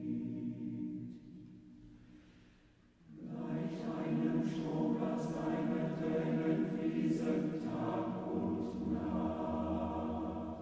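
Choir singing. A phrase fades away in the first two seconds, and a new phrase starts about three seconds in and is held to the end.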